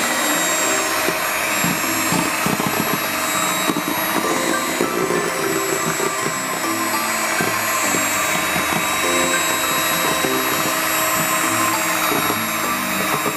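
Electric hand mixer running steadily, its twin beaters whipping a thick ice cream mixture in a metal bowl.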